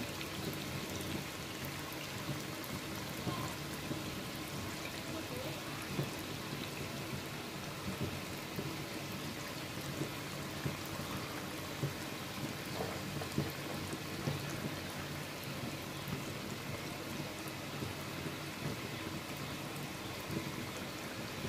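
Chicken curry simmering in a pan: a steady sizzle with small bubbling pops about every second.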